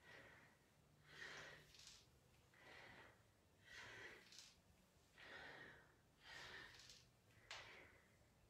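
A person's faint, rhythmic breathing from the exertion of deep bodyweight squats: short hissing breaths in and out, about one a second.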